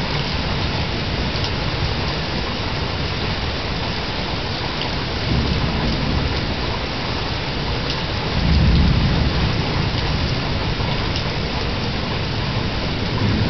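Steady heavy rain with rolling thunder, heard through a porch security camera's microphone. Low rumbles swell about five seconds in and again, louder, about eight seconds in.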